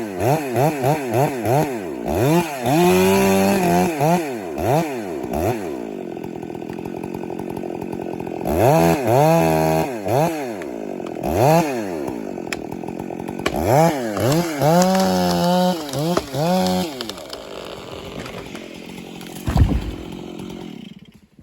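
Chainsaw felling a tree. The throttle is blipped rapidly at first, then revved up and down again and again between stretches at lower speed. A low thump comes near the end, and the sound cuts off just before the end.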